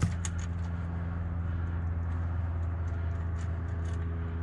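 A steady low hum, with a few faint light clicks of bolts and small metal parts being handled on a TH400 transmission's valve body, once near the start and twice about three and a half seconds in.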